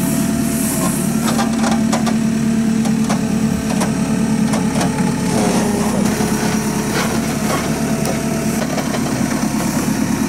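JCB 3CX backhoe loader's four-cylinder diesel engine running steadily while the backhoe digs, with scattered sharp knocks and clatter throughout.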